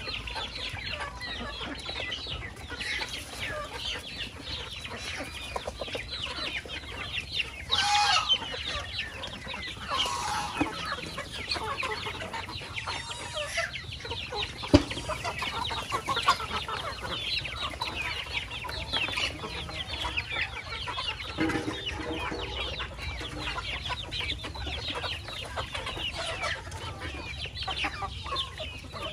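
A flock of chickens clucking steadily while feeding, with a few louder calls about eight and ten seconds in and a single sharp knock about halfway through.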